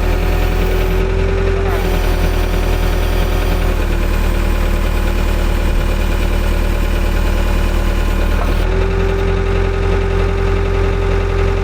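JCB backhoe's diesel engine running steadily. A steady whine rises in twice over it, briefly at the start and again for the last three seconds, as the hydraulics are worked.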